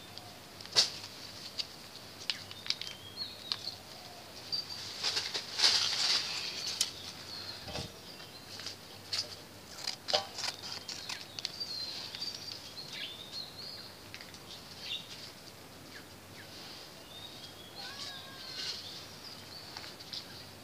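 Crinkling and rustling of a Whiskas cat-food foil pouch being handled, in scattered bursts with sharp clicks. The rustling is thickest about five to seven seconds in and again near the end.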